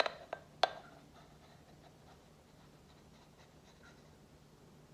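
Three sharp clinks in the first second as a ceramic cup and a stainless steel milk pitcher are handled during the pour of steamed milk, the third the loudest. After that only a faint low hum and a few tiny ticks while the milk pours almost silently.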